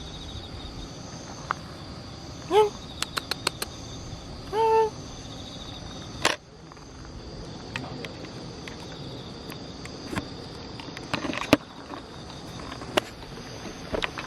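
Crickets chirring steadily in the night. A cat meows twice, a short meow about two and a half seconds in and a longer one near five seconds. A quick run of small clicks falls between the meows, and a few sharp clicks come later.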